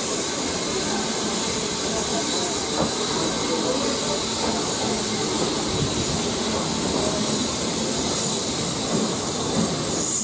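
BR Standard 9F steam locomotive hauling its train at low speed, heard from a carriage window: a steady hiss of steam over the rumble of the carriages rolling along the track.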